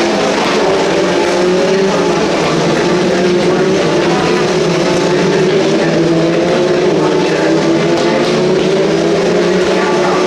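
Engines of several race cars running on circuit at once, their pitches rising and falling as they drive through the corners, with no break in the sound.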